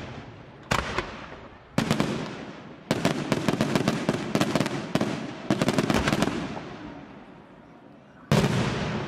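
Aerial firework shells bursting: two or three single bangs near the start, then a fast volley of sharp cracks for about three seconds, trailing off in echoing rumble, and one loud bang near the end.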